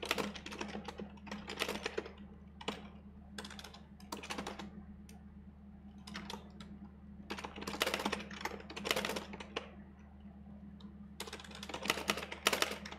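Typing on a computer keyboard: rapid key clicks in bursts with short pauses between them.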